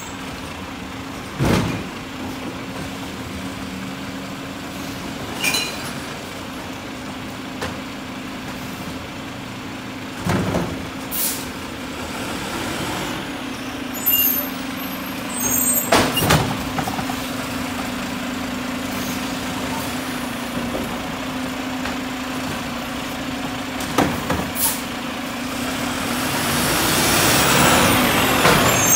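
Mack garbage truck with a Heil side-loader body running at low speed and creeping up to the curb: a steady engine drone broken by several short air-brake hisses and clanks. It grows louder near the end as the truck pulls up close.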